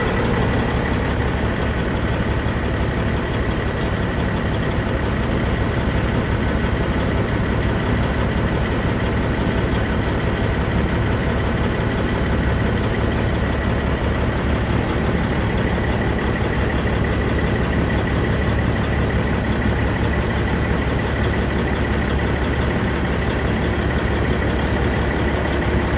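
Tipper truck's diesel engine idling steadily.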